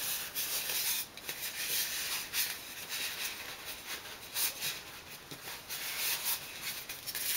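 Irregular scratchy rustling and rubbing from hands handling a chunky crocheted hat on a display head.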